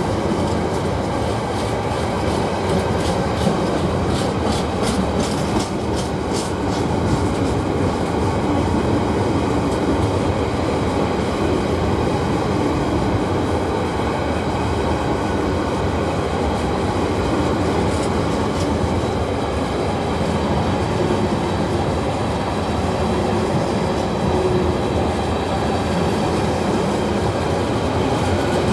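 Long freight train of lightly loaded container wagons rolling past steadily, wheels rumbling on the rails, with a run of clickety-clack from the wheels over rail joints a few seconds in.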